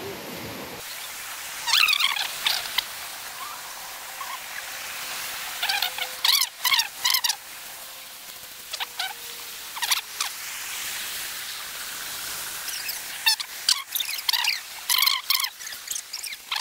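Wild animals in the forest giving short, high chirping calls in clusters, several times over, against a quiet background.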